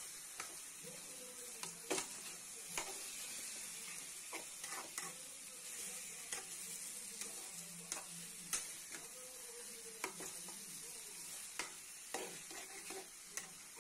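Chicken curry with onion and tomato sizzling in a steel pan as it is stirred, with irregular sharp clicks and scrapes of the spoon against the pan every second or so over a steady frying hiss.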